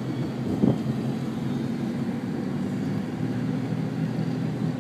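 Car engine and road noise heard from inside the cabin: a steady low hum, with a brief thump a little under a second in.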